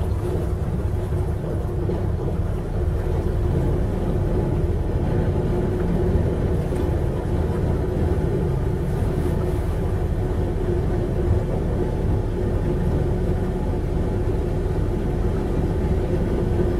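Steel motor cruiser's inboard engine running steadily underway, heard from inside the wheelhouse: an even low rumble with a steady hum over it.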